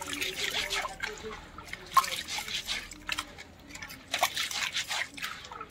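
Hands churning and rubbing soaked black gram in a metal basin of water, with irregular splashing and sloshing as the grains are lifted and dropped back; the rubbing washes the husks off the gram.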